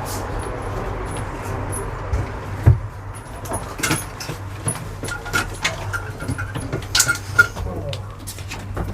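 Low steady hum of an idling vintage vehicle, with scattered knocks, clacks and rattles on top.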